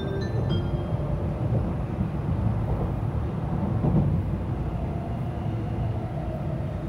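Steady low rumble and hum inside a Tokaido Shinkansen passenger car.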